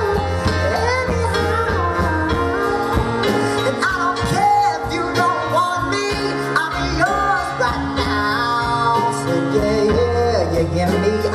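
A singer performing with backing music: a sung melody with gliding and held notes over a steady low bass.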